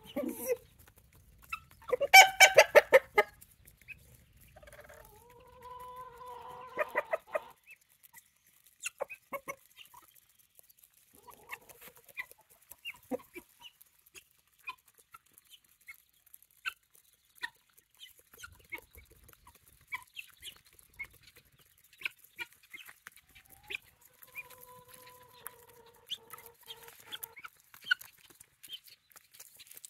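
Chickens clucking as they feed, with a loud harsh squawk about two seconds in and two long even-pitched calls, one near the start and one near the end. Between the calls come many quick sharp taps of beaks pecking black soldier fly larvae off hard, frozen ground.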